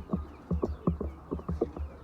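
Chickens making a quick, irregular run of short low knocks, about ten in two seconds.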